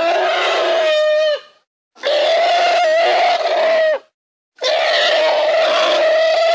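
Woolly mammoth sound effect: three long trumpeting calls, each held on one steady pitch and dropping at its end, with short silent gaps between them; the third call is still going at the end.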